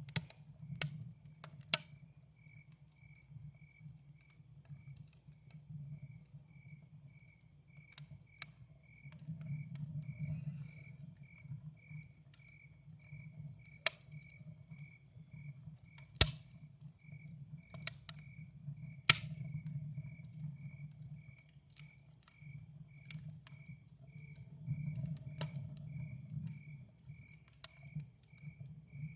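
Campfire crackling, with scattered sharp pops, the loudest about sixteen seconds in, over a low steady rumble. A cricket chirps evenly, about twice a second.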